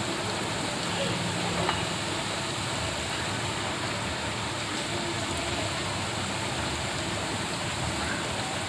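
Breaded chicken cheese rolls deep-frying in hot oil on a low flame: a steady sizzle, with more rolls being lowered into the oil.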